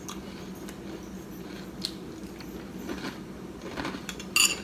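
Someone chewing crunchy cereal, with a few light spoon clinks against a bowl, the sharpest one near the end.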